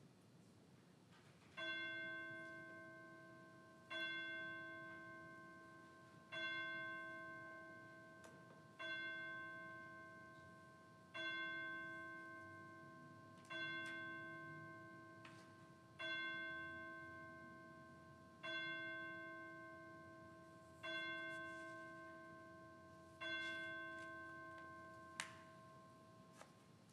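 A single bell striking the hour: ten strokes on the same note, about two and a half seconds apart, each ringing out and fading before the next. A sharp click sounds near the end.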